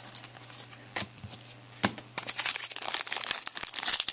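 A few light clicks, then from about two seconds in a dense crinkling of a trading-card pack wrapper being handled and torn open.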